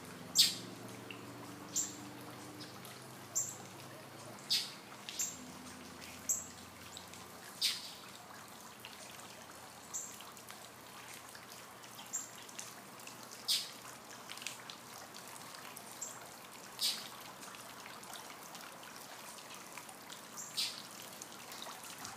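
A bird giving single short, high chirps at irregular intervals of one to three seconds, over the steady trickle of water falling in a tiered stone garden fountain.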